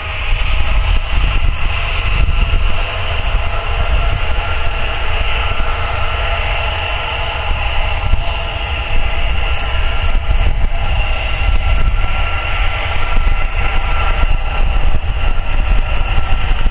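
Jet airliner on final approach, its engines giving a steady whine of several held tones, over a heavy low rumble of wind buffeting the microphone.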